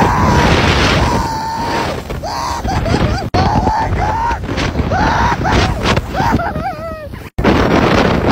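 A person screaming in a series of long, wavering cries while riding down a steep descent, over loud wind rushing across the microphone.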